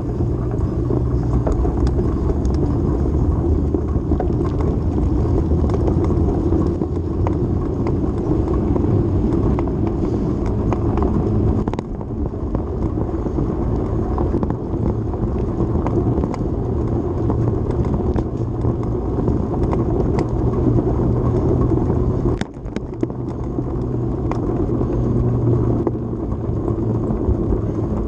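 Steady rumble and rush of a bicycle ride at speed on pavement: wind over the handlebar-mounted camera and tyre and road noise, with scattered small clicks and rattles. The noise dips briefly twice, near the middle and about three-quarters through.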